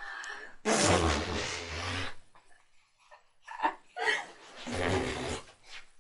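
Laughter and chuckling in several short bursts, after a loud rush of noise about a second in.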